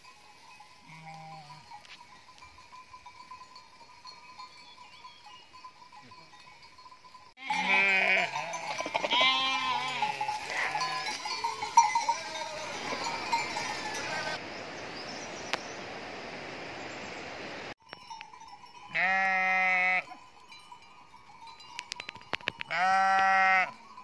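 Flock of sheep bleating: a cluster of overlapping bleats in the middle, then two long, loud single bleats near the end.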